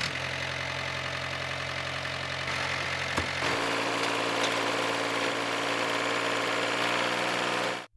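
Engine of a miniature model tractor running steadily. Its note shifts about three and a half seconds in, and it cuts off abruptly just before the end.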